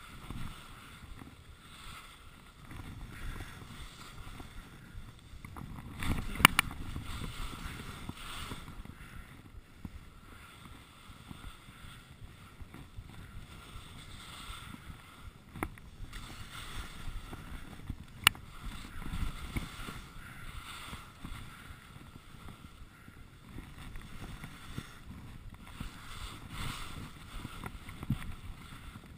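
Rossignol skis sliding and scraping over packed snow at speed, mixed with wind rushing over the microphone, rising and easing through the turns. Two sharp clacks stand out, one about six seconds in and one about eighteen seconds in.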